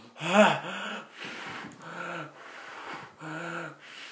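A young man's wordless pained voice while eating very spicy crisps: a short wavering cry about half a second in, then a few low closed-mouth hums as he reacts to the chilli burn.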